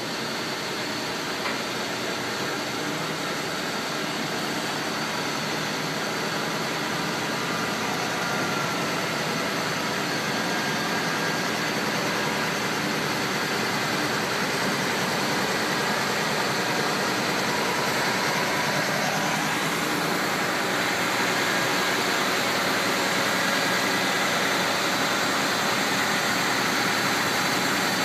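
Heavy-haul rig moving slowly with a heavily loaded multi-axle trailer: a steady diesel engine noise that grows gradually louder.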